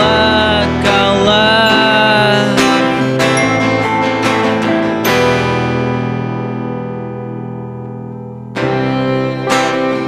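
A band's song played on guitar and piano, with a melody line gliding over the first couple of seconds. About five seconds in, a chord is struck and left to ring and fade, and about eight and a half seconds in the full band comes back in.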